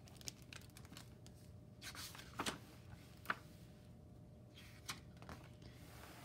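Hardcover picture book being handled and its pages turned: faint scattered taps and paper rustles, with a sharper click about halfway through.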